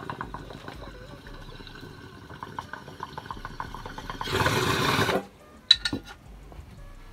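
Water bubbling in a glass beaker bong as smoke is drawn through it, a fast run of gurgles. About four seconds in comes a loud rush of air for about a second as the bowl is pulled and the chamber cleared, followed by two sharp glass clinks.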